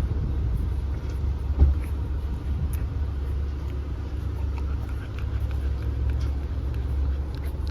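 Steady low road rumble inside a moving car, with a single thump about a second and a half in.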